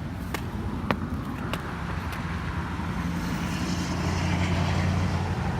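A motor vehicle's low engine hum growing louder to a peak about four to five seconds in, as a vehicle passes. Three sharp clicks in the first second and a half.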